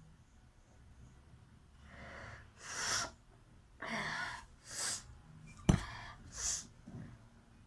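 A woman sneezing repeatedly: a breathy intake, then about five short, sharp sneezes in quick succession, with a very sharp click about three-quarters of the way in.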